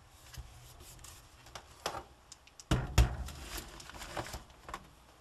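Dell Latitude D610 laptop being handled and flipped over on a hard countertop: scattered light clicks and knocks, with a louder thump about three seconds in.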